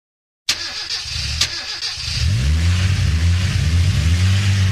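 An engine starting: two sharp clicks, then about two seconds in a deep, steady engine note sets in with repeated rises in pitch.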